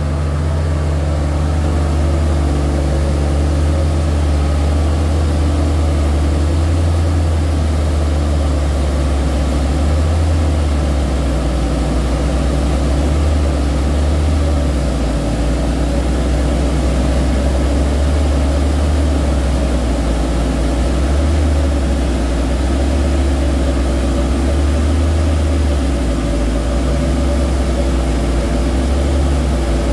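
Heavy diesel engine running steadily at low revs, a deep constant hum with no revving.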